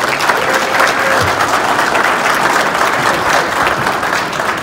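Audience applauding: dense, steady clapping from a seated crowd, easing slightly near the end.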